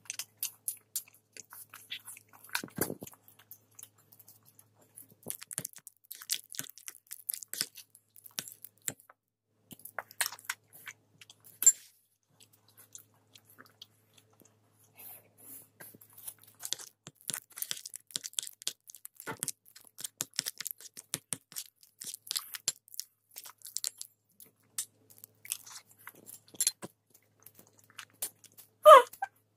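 A toddler chewing a mouthful of food, with many small wet clicks and crackles of the mouth at uneven intervals, quieter for a few seconds around the middle. Two louder short sounds come near the end.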